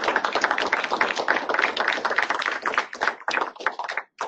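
Small audience applauding, the clapping thinning out to a few last claps and stopping near the end.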